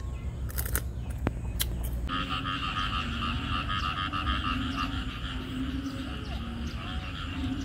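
A chorus of frogs calling in a rain-flooded rice field, starting about two seconds in: a dense, pulsing trill over lower repeated croaks. Before the chorus, a few sharp clicks.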